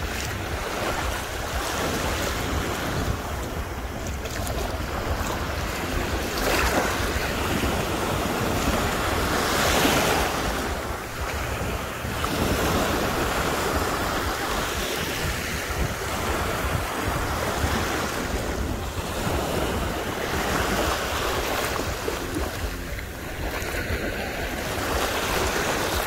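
Small sea waves washing in over the sand at the water's edge, surging louder every few seconds, with wind rumbling on the microphone.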